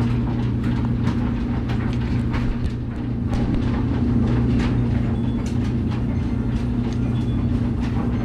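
A steady low machine hum runs throughout, with scattered light clicks and knocks from screws and the washer's top panel being worked loose by hand.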